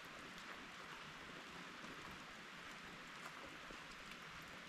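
Steady, faint rain falling, an even hiss with scattered small drop ticks.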